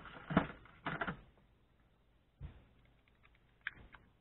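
Light clatter of tools being handled on a workbench: a quick cluster of small clicks and knocks, a dull knock about halfway through, and a single sharp click near the end.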